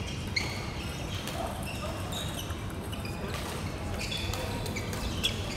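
Table tennis balls clicking off paddles and tables in rallies, with scattered sharp clicks throughout and short high squeaks in between.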